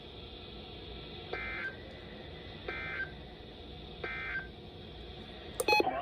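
Three short SAME end-of-message data bursts from a NOAA Weather Radio weekly test, each a third of a second of buzzy two-tone digital warble, about a second apart, heard through a weather-alert radio's small speaker over a faint steady hiss. A sharp click near the end.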